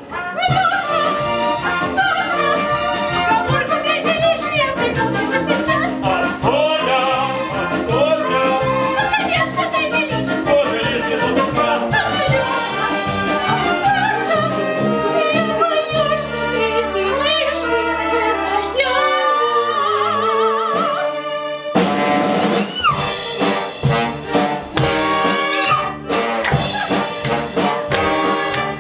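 Brass-led operetta band music playing an instrumental break with a steady beat. About 16 seconds in the accompaniment thins to long held bass notes, and the full band comes back in about 22 seconds in.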